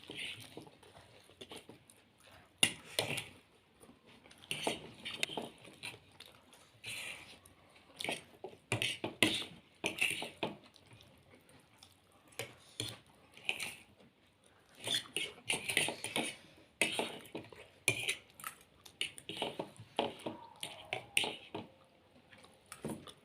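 Close-up eating sounds of momos and chilli potato: chewing with many irregular short clicks and clinks.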